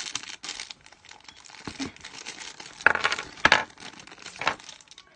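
Crinkling plastic blind-bag wrapping being handled, in short rustles with the loudest ones from about three seconds in.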